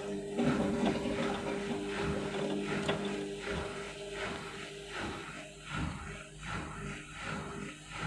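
Indesit washing machine running on a rinse cycle with a small load. A steady hum fades about halfway through, while from about three seconds in the turning drum gives a regular pulsing, roughly two beats a second.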